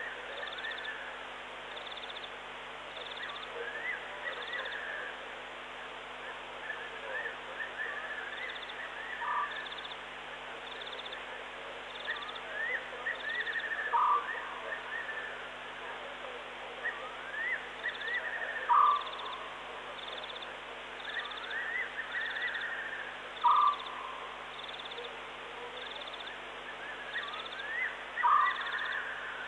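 Night chorus of wild animals in the African bush. A short call is repeated about every five seconds and is the loudest sound, over a mass of quick rising chirps and a steady, higher pulsing trill.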